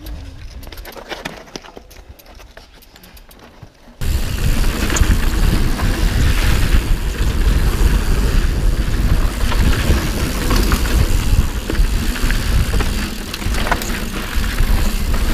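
Mountain bike riding down a rough trail: for about four seconds, quiet tyre crunch and sharp clicks over rock, then loud, steady rumble of wind buffeting and trail rattle on a handlebar-mounted camera, with ticks and knocks from the tyres and bike over the dirt.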